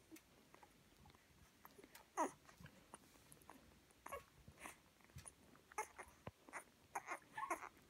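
Nursing black and tan coonhound puppies squeaking and whimpering in short, falling cries, scattered every second or so; the loudest comes about two seconds in, with several in quick succession near the end.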